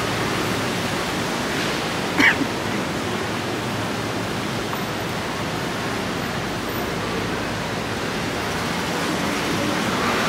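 Steady city street noise: traffic running past on a wet road, with tyres hissing. About two seconds in there is one short, sharper sound.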